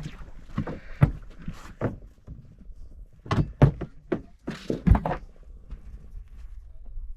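Several dull thuds and knocks, the loudest about a second in, two close together around three and a half seconds in, and another near five seconds, over a low steady rumble.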